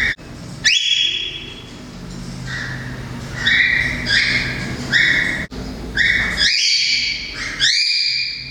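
Cockatiel calling, a run of about ten short, repeated calls, each sweeping quickly up in pitch and then held briefly, some running together near the end.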